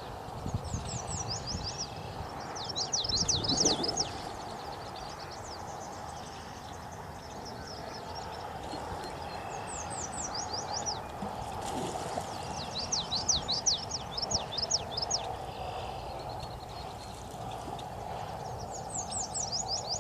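A songbird singing in short phrases of quick, high, falling notes, repeated several times over a steady background noise.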